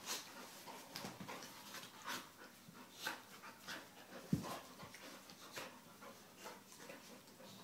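Two dogs play-wrestling on a rug, panting and snuffling irregularly as they grapple, with a single knock about four seconds in.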